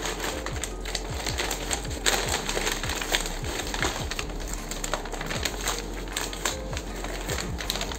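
Crinkling and tearing of a brown paper courier bag as it is pulled open by hand: a run of irregular crackles, rustles and small rips.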